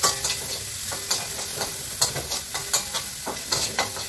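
Ground pork sizzling in oil in a frying pan while a spatula stirs it, scraping and clicking against the pan at irregular moments. The meat is being browned.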